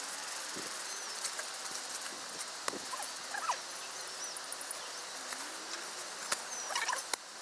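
Rustling and soft handling noise of bedding: a closed-cell foam sleeping pad and a fleece sleeping bag being spread out on a camp cot, with small clicks. A few short chirping calls sound in the background.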